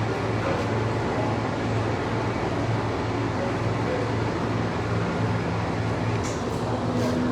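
Steady low hum of machine-shop machinery running, with two light clinks near the end.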